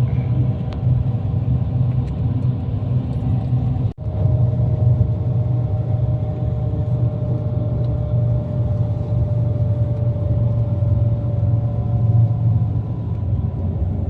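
Steady low rumble of a moving vehicle heard from inside it, with a faint steady whine above the rumble. The sound cuts out for an instant about four seconds in.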